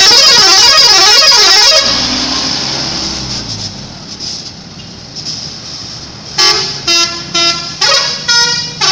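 A bus's 'telolet' musical air horns play a loud, warbling melody for about two seconds. After a lull, a run of short horn toots comes at about two a second.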